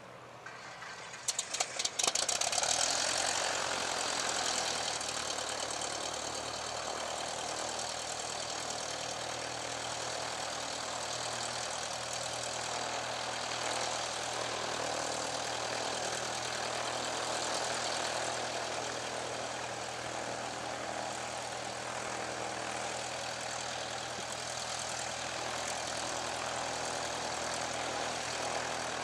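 Radial piston engines of a World War II bomber: a few sharp pops and coughs about a second in as an engine fires, then steady propeller-driven engine running at idle.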